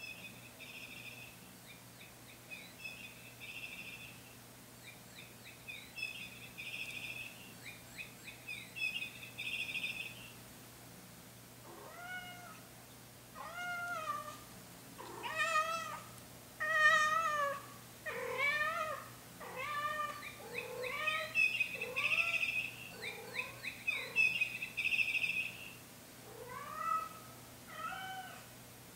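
Silver chinchilla Persian cat giving a string of about a dozen drawn-out, wavering meows, starting about twelve seconds in, while she carries a toy bird in her mouth: her attention-seeking call. Before that, and again in the middle of her calls, a songbird chirps in quick repeated phrases.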